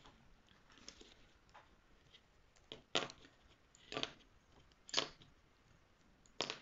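Plastic spring clothespins being unclipped from a felt piece and set down: a run of short, sharp plastic clicks, roughly one a second, the clearest ones in the second half.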